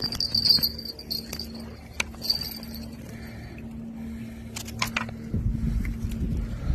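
Fishing reel and tackle clicking and clinking while a fish is being fought on the line, over a steady low hum. Wind rumbles on the microphone from about five seconds in.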